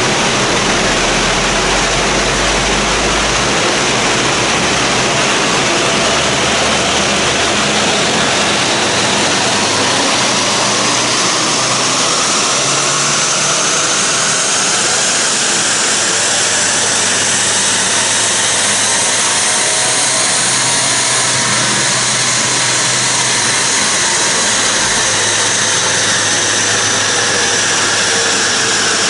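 Subaru WRX STi's turbocharged flat-four running under load on a chassis dynamometer during a power run, with a dense, even rush of noise throughout. A whine rises slowly in pitch for about ten seconds from midway and then falls back near the end.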